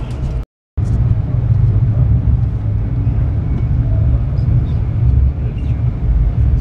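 Steady low rumble of the Sunlander passenger train running at speed, heard from aboard. The sound cuts out completely for a moment about half a second in, then the rumble carries on unchanged.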